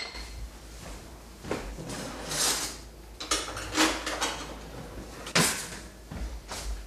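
Kitchen drawer being opened, rummaged in and pushed shut: a series of scattered rattles and knocks, the sharpest about five seconds in.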